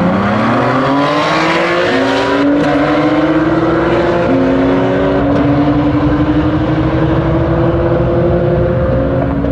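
Two sports cars, one of them a Zagato-bodied Ferrari 599 GTZ Nibbio Spider with its V12, launching from a standing start and accelerating hard. The engine note climbs, drops back at upshifts about two, four and nine seconds in, and climbs again after each.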